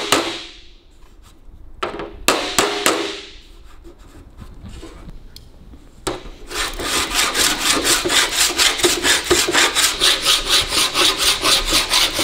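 Body file with a flexible blade being pushed in quick strokes across an aluminium bonnet panel, about five rasping strokes a second from about six seconds in. This is metal finishing, skimming the high spots off the panel. Near the start and about two seconds in, a few short sharp metal taps on the panel.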